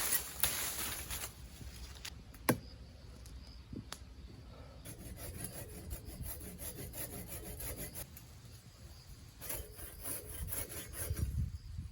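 Rubbing and scraping on wood, uneven and without a steady rhythm, with a few sharp knocks, the loudest about two and a half seconds in.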